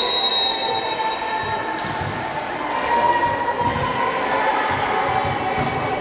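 Basketball bouncing on an indoor court, with irregular knocks over the noise of the gym and a few held high tones.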